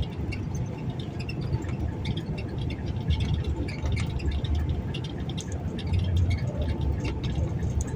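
Outdoor ambience: a fluctuating low rumble, with many short, high chirps or ticks scattered throughout.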